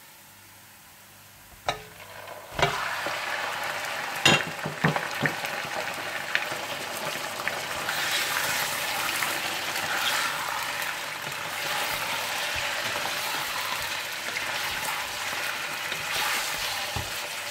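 Mutton pieces sizzling in hot desi ghee with golden-fried onions as they are stirred in. After a quiet start come a few sharp knocks, then the sizzle begins about two and a half seconds in and keeps going with small stirring clicks.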